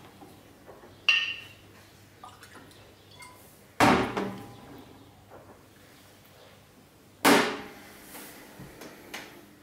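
A glass vodka bottle and drinking glasses knocking and clinking against a tabletop. A clink with a short ringing note comes about a second in, then two louder knocks follow some three and a half seconds apart, with a few faint clicks near the end.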